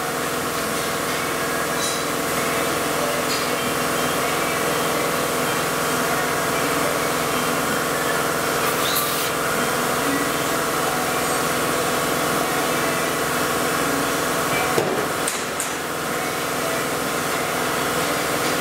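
Steady machinery hum with several held tones, with a few light clicks and knocks from metal parts being handled at the lathe chuck, about nine seconds in and again around fifteen seconds.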